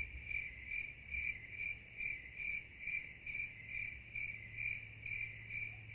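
Cricket chirping: an even, repeated chirp a little over twice a second. It is laid in as a 'crickets' sound effect in place of an answer, with all other sound cut away.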